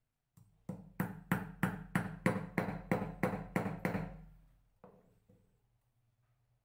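Hammer striking a modified concrete nail used as a punch, piercing a hole in the flattened end of a chainmail ring on a steel block: about a dozen quick, evenly spaced taps, roughly three a second, each with a short ring, then two lighter taps.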